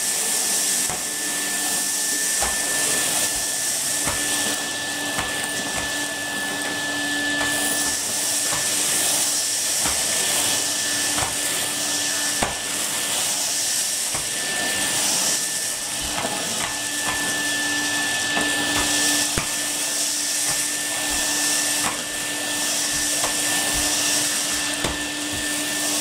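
Numatic Henry cylinder vacuum cleaner running steadily with a constant motor whine, its floor tool worked back and forth over a carpet, with scattered light knocks and clicks.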